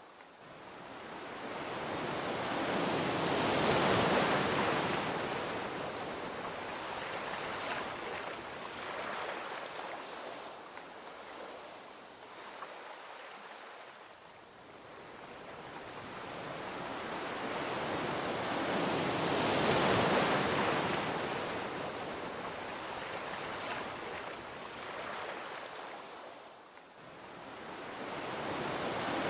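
Gentle ocean waves washing onto a beach: two slow surges of rushing water about 16 seconds apart, each swelling and then fading back, with a third building near the end.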